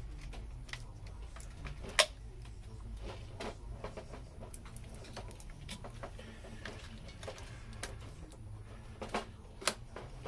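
Irregular sharp clicks and small knocks of hard objects being handled, the loudest about two seconds in and several more near the end, over a low steady hum.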